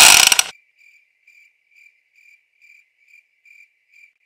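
A very loud, brief burst of noise at the very start, then a cricket-chirping sound effect: a faint, steady high chirp repeating about two or three times a second.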